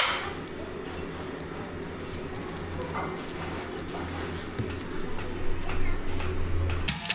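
One sharp hammer blow at the start, then scattered light taps and scrapes of a toothed stitching roller working a rubber repair patch onto a truck tire sidewall, over a steady low hum.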